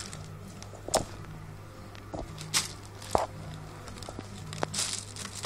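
Clear plastic packaging crinkling and jacket fabric rustling as the jacket is handled, in scattered short rustles and clicks over a steady low hum.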